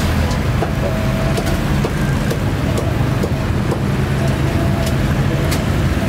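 Street traffic with motorbike engines running close by: a steady low engine hum.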